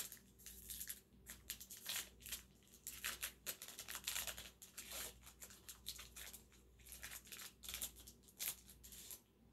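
Wrapper of a Panini Contenders football card pack being torn open and crinkled by hand: an irregular run of short crackling rustles that stops near the end.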